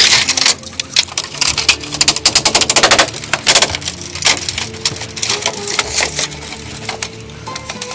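Rapid, irregular clicking and knocking, dense in the first half and thinning later, over quiet background music with held notes.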